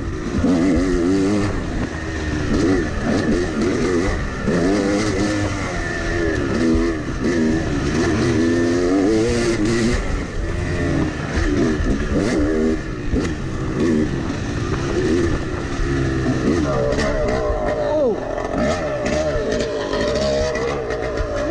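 Yamaha 250 two-stroke dirt bike engine under riding throttle, its pitch rising and falling as the throttle is worked on the trail. Near the end it settles to a steadier, more even note as the bike slows.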